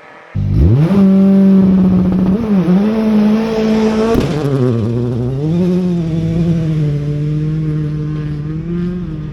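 Rally car engine at high revs. It comes in suddenly with a steep climb in pitch, then holds high with brief dips and wavers, dropping to a lower steady pitch about four seconds in, as on a gear change.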